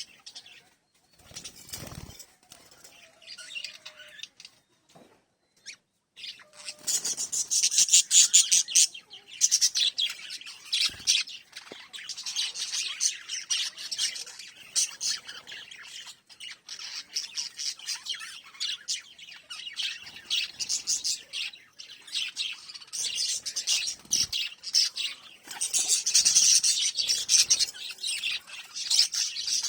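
Small pet parrots chirping and chattering: sparse, quiet chirps at first, then from about six seconds in a dense, continuous, shrill chatter of many birds at once.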